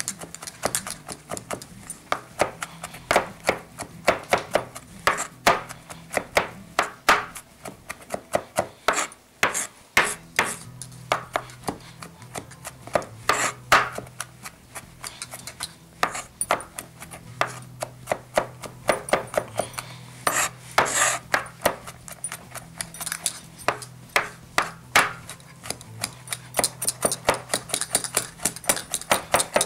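Knife chopping garlic on a cutting board: quick, uneven strokes, several a second, with brief pauses between bursts.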